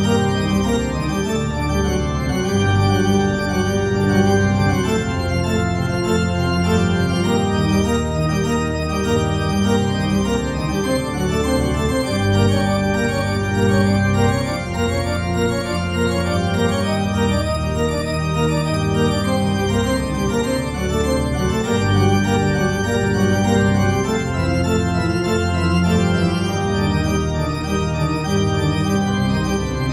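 Organ music playing slow, held chords.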